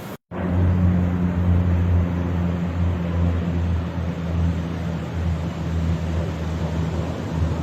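A steady low engine drone over a wash of noise, starting loudly right after a brief moment of silence.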